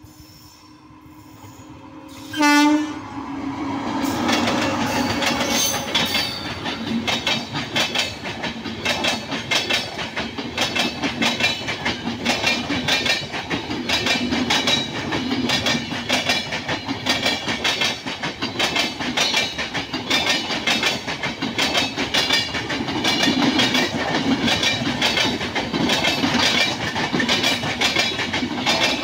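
Electric freight train approaching at speed: its locomotive horn gives one short blast about two and a half seconds in. The wagons then rush past with a rapid, continuous clatter of wheels over the rail joints.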